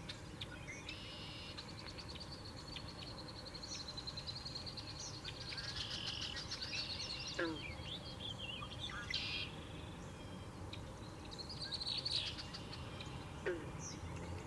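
Small birds singing and calling: a long, high trill through the first half, with scattered chirps and twice a long falling whistle. Under them runs a low rumble of wind on the microphone.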